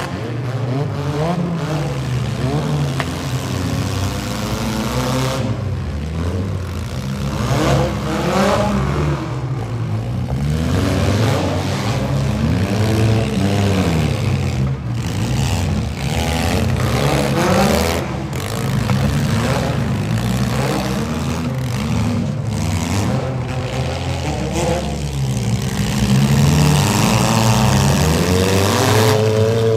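Engines of several battered demolition-derby minivans revving hard, their pitch climbing and falling again and again as the vans accelerate and manoeuvre, getting louder near the end.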